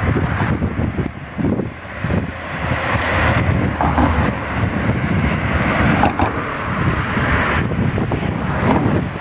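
A car driving past: its road noise builds over the first few seconds and falls away about seven and a half seconds in, over gusty wind buffeting the microphone.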